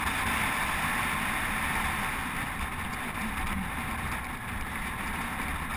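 Steady rush of wind over a bike-mounted action camera's microphone, with road-bike tyres humming on asphalt at riding speed.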